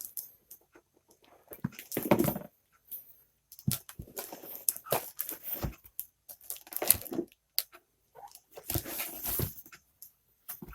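Ceiling fan parts and their packaging being handled: irregular bursts of rustling, tearing and crinkling, with a few knocks.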